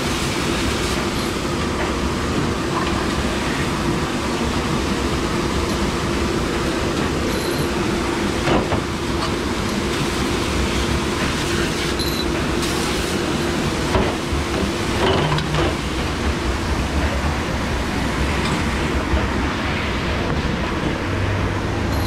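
Commercial conveyor dish machine running, a steady rush of spraying water with a steady hum under it. A few sharp knocks stand out over the wash noise.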